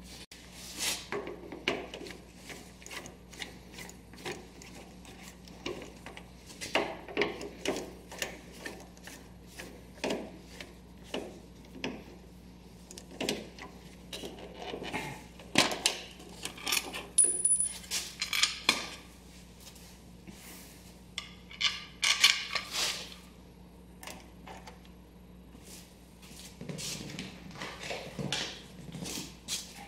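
Hand work on a Kubota compact tractor's plastic tail light assembly: scattered small clicks, taps and scrapes of a screwdriver and the plastic lens as it is unscrewed and pried off. The clicks come in small clusters with pauses between.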